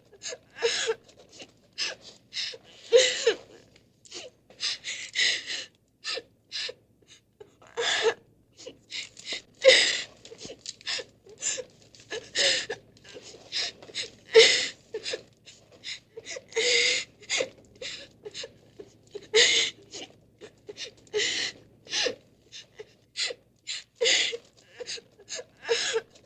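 A person crying in short, breathy gasping sobs that come in quick, irregular runs, with brief gaps between them.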